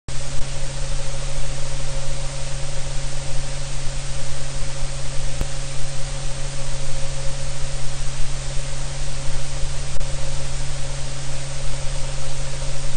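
Steady, loud hiss like static, with a constant low hum and a thin steady tone beneath it, unchanging throughout.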